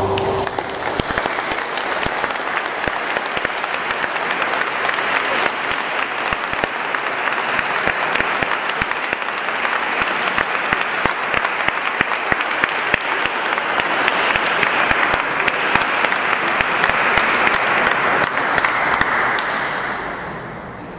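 Audience applauding: a dense patter of many hands clapping at once, which starts as the organ's final chord stops and dies away near the end.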